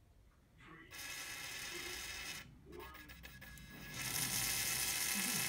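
Tiny coreless DC motor of a 3D-printed 5 mm bow thruster whining through its brass pinion and plastic gear, speed varied with a joystick through a motor driver. It starts about a second in, drops out briefly near the middle, then runs louder from about four seconds.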